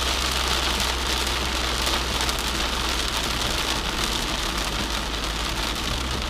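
Heavy rain pattering on the car's roof and windshield, heard from inside the cabin, over the low steady drone of the Mustang's engine and Flowmaster exhaust.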